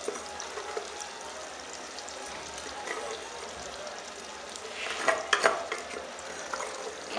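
Sauce cooking in an aluminium pot on a gas burner, a steady hiss, with a metal spoon stirring and clinking against the pot in a short cluster about five seconds in.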